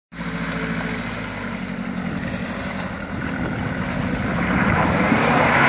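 Engine of a Nissan Patrol 4WD working up a rutted, muddy off-road climb, getting louder in the last couple of seconds as it comes closer under load.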